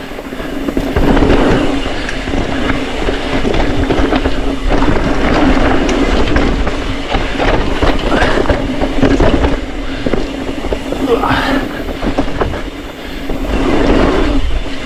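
Mountain bike riding fast down a dirt singletrack: constant tyre noise and wind over the microphone, with the bike clattering and rattling over bumps and roots, and a steady hum underneath.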